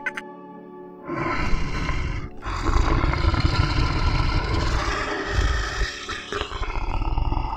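Lion roaring: a loud, deep, rough roar that starts about a second in, breaks off briefly, then carries on almost to the end.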